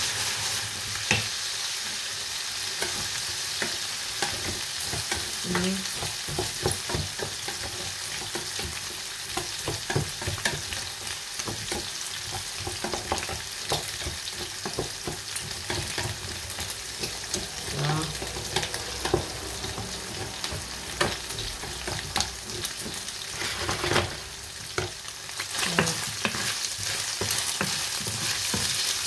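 Raw rice frying in hot oil in a pan, sizzling steadily, with frequent scrapes and taps as it is stirred. The rice is being fried on its own as a first step.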